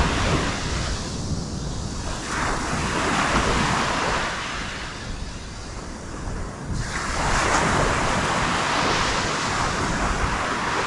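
Ocean surf breaking and washing up the beach, the rush swelling and fading several times, with wind rumbling on the microphone.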